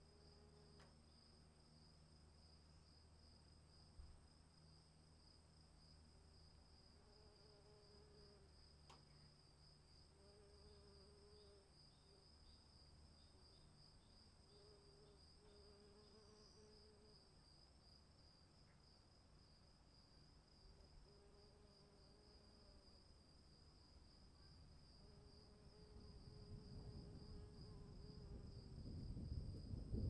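Faint crickets trilling steadily, with a lower call repeating every few seconds. Over the last few seconds a low rumble of distant thunder swells up.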